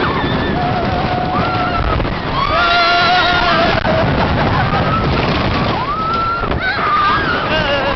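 Riders screaming on the Tonnerre de Zeus wooden roller coaster: a series of long, high screams over a loud, steady rush of wind and track noise.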